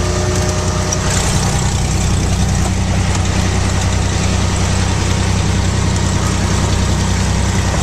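Cessna 210's six-cylinder piston engine and propeller running steadily at low taxi power, heard from inside the cabin as a constant low drone.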